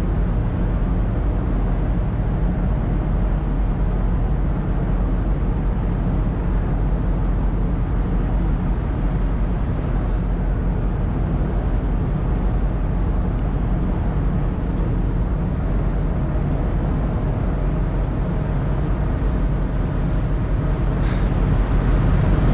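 Steady low rumble of a car ferry's engines running under way, heard on its open vehicle deck.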